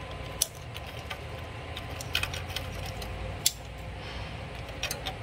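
Small clicks and taps of hands working a rubber fuel line off a small-engine carburetor: a handful of sharp ticks spread a second or so apart, over a steady low background hum.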